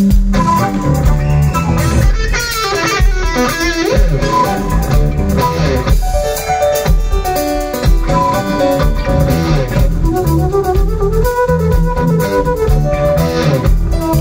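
Rock band playing live in an instrumental passage: flute lines over electric guitar, bass guitar and drums, with some sliding notes.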